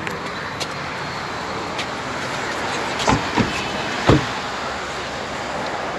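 Steady noise of road traffic on a wet street, with two or three short dull thumps about three to four seconds in.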